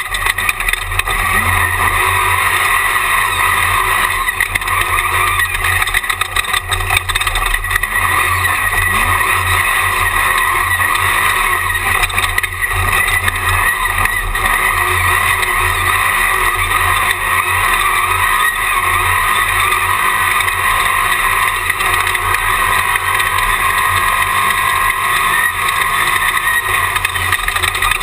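Jimco Class 1 desert race car running at speed, recorded on board: a loud, steady drone of engine and wind noise with no clear breaks or big revs.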